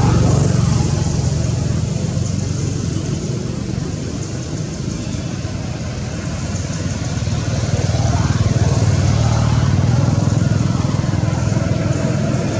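Steady low rumble of motor traffic, easing off for a few seconds midway and swelling again about two-thirds of the way through.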